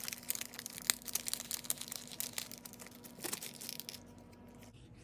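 Clear plastic packaging sleeve crinkling and crackling as a pack of paper stickers is slid out of it by hand, dying away about four seconds in.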